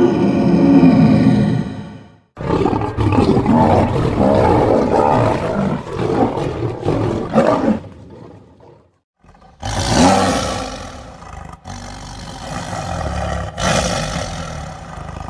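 Tiger roaring and growling in a run of separate takes that start and stop abruptly, with short gaps about two seconds in and about nine seconds in.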